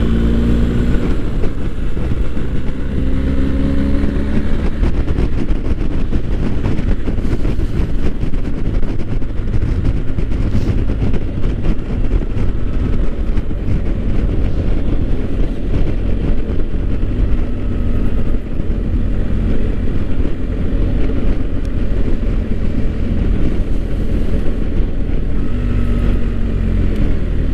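BMW GS motorcycle riding along at road speed, heard from an onboard camera: a heavy, steady wind rush over the engine's low drone. The engine note rises briefly about three seconds in and again near the end, as the bike accelerates.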